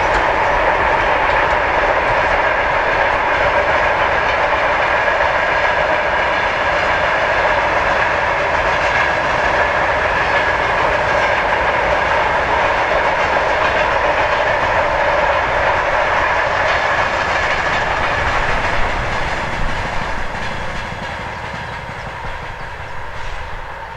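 Freight train wagons rolling along the track, with steady ringing tones in the rolling noise. The sound fades away over the last few seconds as the train moves off.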